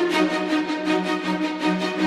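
Background music with a steady, fast electronic beat and a sustained low tone.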